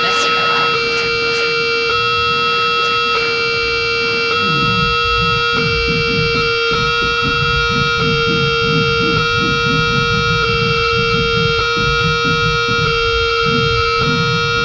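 Live electronic music: a sustained drone of several steady high tones that cuts out briefly about every second and a bit, giving a slow pulse. A few scratchy clicks sound at the start, and a low, fluttering rumble comes in about four seconds in.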